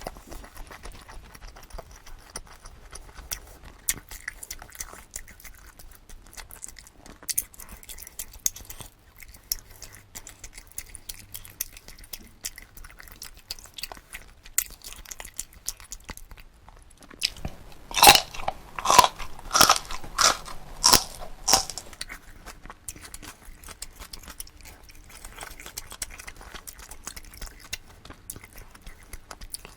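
Close-miked chewing of jokbal (braised pig's trotters) and side dishes, wet and steady, with a run of about eight loud crunchy bites about two-thirds of the way through.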